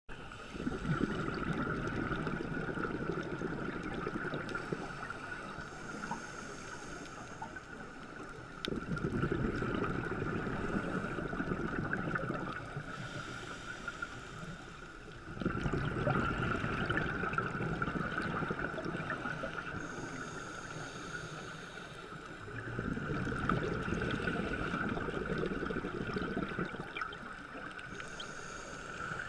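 Underwater sound of a scuba diver breathing through a regulator: exhaled bubbles rumble and gurgle in long bursts of about four seconds, four times, with a short hiss of inhalation through the regulator between them. A steady high whine runs underneath.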